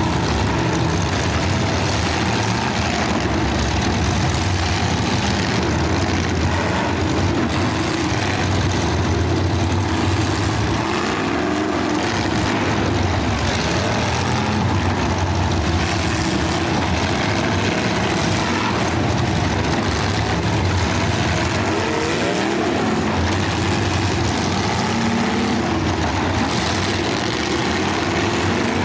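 Several full-size demolition derby cars' engines running together in a steady, loud din, with occasional revving.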